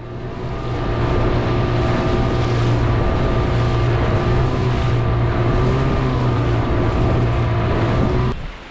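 Yamaha outboard motor pushing an inflatable boat along at a steady cruising speed, a steady drone with wind and water noise over it. It rises in over the first second and cuts off suddenly shortly before the end.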